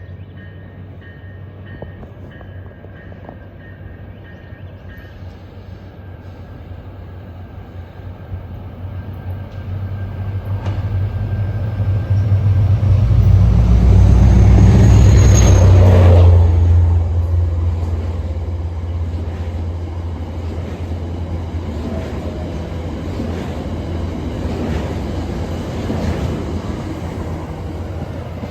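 A diesel-hauled passenger train approaches and passes close by. The locomotive's low engine drone builds, is loudest about halfway through as it goes past with a brief falling whine, then the cars keep rumbling by on the rails.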